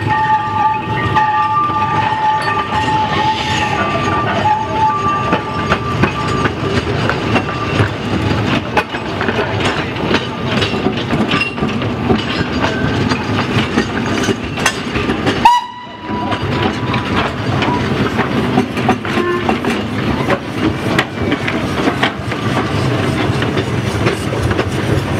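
Narrow-gauge steam locomotives and wooden coaches moving at low speed, with a dense run of clicks and knocks from wheels and couplings over the rail joints. Near the start a two-note steam whistle sounds for about five seconds. About two-thirds of the way through the sound cuts out briefly, and a shorter single whistle note follows.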